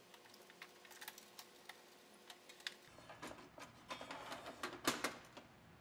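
Faint clicks and light plastic rattling as the SawStop compact table saw's clear plastic blade guard is handled and fitted into place over the blade, thickening into a run of clicks from about three seconds in.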